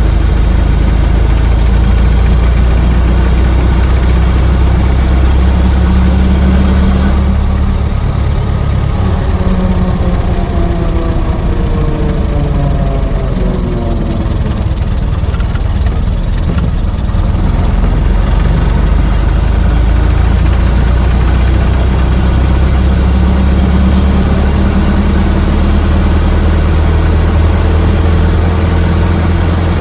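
An old car's engine running with a steady, deep drone. About a third of the way in, it eases a little and its tone slides down over several seconds, then it settles back to its even running.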